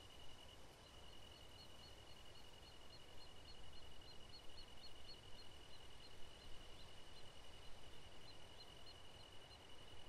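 Insects singing: a steady high trill that breaks off briefly near the start, with a second insect's short higher chirps repeating about twice a second over it, faint above a low ambient rumble.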